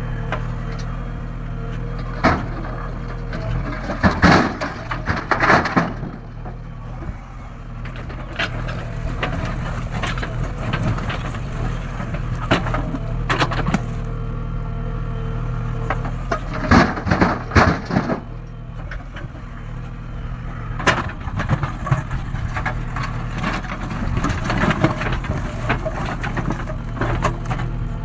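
JCB 3DX backhoe loader's diesel engine running steadily, with repeated bursts of clanking and rattling from the working bucket and arm.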